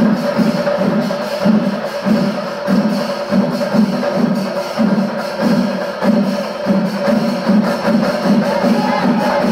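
Chenda melam: a Kerala temple percussion ensemble of chenda drums with ilathalam cymbals playing loud, with a steady beat about every two-thirds of a second, in its kalasam, the closing climax of the melam.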